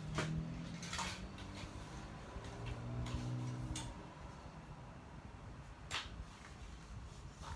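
A few sharp plastic clicks and knocks as LEGO robots and pieces are picked up and set down on the arena floor, with a low steady hum through the first few seconds.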